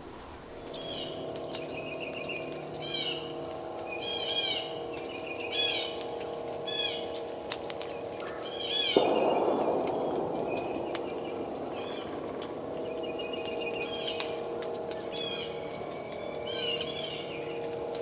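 Small songbirds chirping over and over, short quick calls, above a steady low hum. About halfway through a rush of noise comes in and fades over a few seconds.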